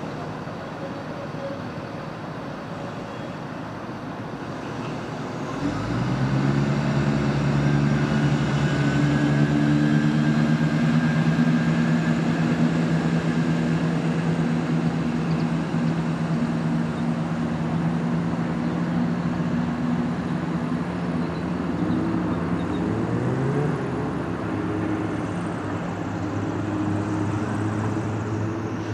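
Class 170 Turbostar diesel multiple unit's underfloor diesel engines opening up suddenly, about six seconds in, and then running steadily under power as the train pulls away, with a brief rise in pitch near the end.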